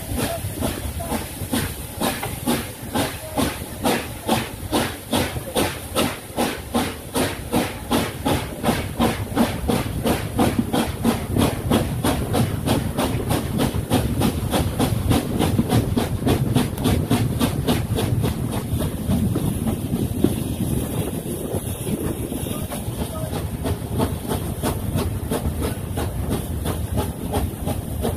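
USATC S160 2-8-0 steam locomotive 5820 working a train, heard from a coach behind it: a rhythmic exhaust chuff that starts as distinct beats and gets quicker until the beats run together from about ten seconds in, over the rumble of the coaches on the rails.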